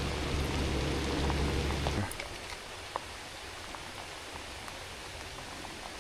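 Heavy rain pouring down, a steady hiss with scattered individual drops striking close by. A low, steady hum underneath cuts off abruptly about two seconds in.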